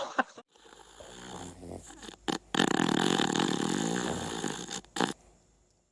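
A dog making a rasping, snore-like noise: a quieter one about a second in, then a louder one lasting about two seconds.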